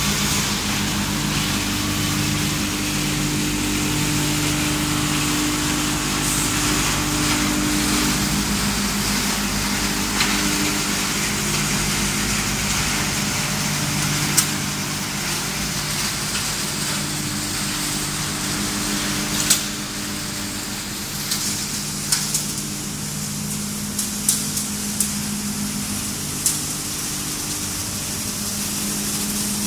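Wood pellet production line machinery running: electric motors, blowers and conveyors make a steady low multi-tone hum under a broad hiss. Scattered sharp clicks and knocks come in the second half.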